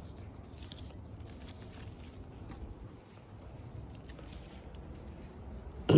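Faint rustling and crunching of calamansi leaves and twigs being picked by hand, with scattered small ticks; a brief louder sound comes at the very end.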